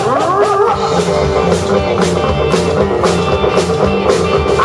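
Rock and roll band playing live: electric guitars with rising bent notes at the start and again near the end, over bass guitar and a drum kit keeping a steady beat.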